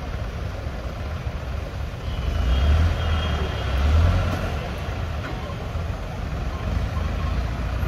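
Diesel engine of a hydra mobile crane running under load while hoisting, with its low rumble swelling louder twice, about two and a half and four seconds in.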